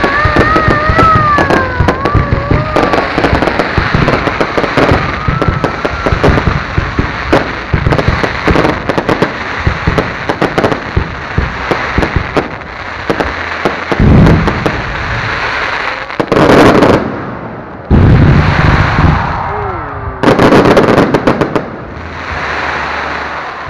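Fireworks display: rapid crackling bursts of shells going off overhead, then several louder, booming bursts in the second half before it fades out.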